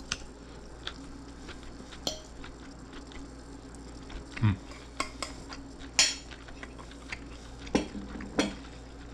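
Metal fork clinking and scraping against a plate of food in scattered light clicks, with a few louder knocks as plates are set down on a wooden table.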